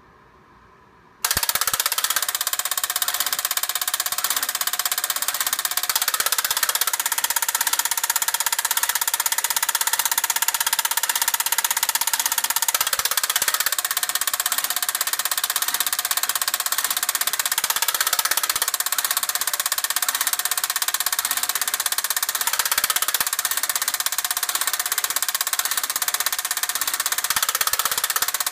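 Late-1960s Monotype 31-channel electronic punch perforating a paper ribbon: a rapid, continuous mechanical clatter of punch strokes that starts suddenly about a second in and keeps on at a steady pace.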